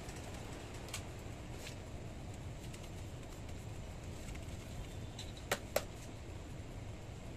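Metal palette knife working the cream on a cake turntable: a few faint ticks, then two sharp clicks close together about five and a half seconds in, over a low steady hum.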